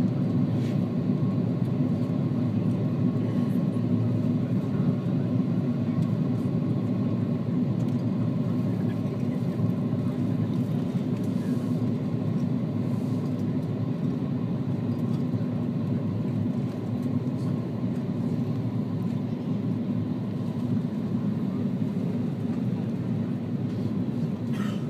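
Steady cabin noise inside an Airbus A330-200 on descent: a low, even rumble of the engines and airflow, with a faint steady tone above it.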